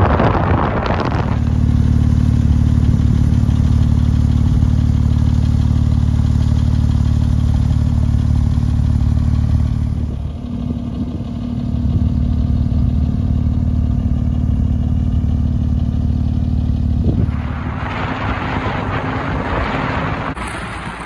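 Porsche 997 GT2's twin-turbo flat-six with a Sharkwerks bypass exhaust running at a steady engine speed, a low, even exhaust drone with no revving, briefly dipping about halfway through. Wind and road rush come in near the end as the drone fades back.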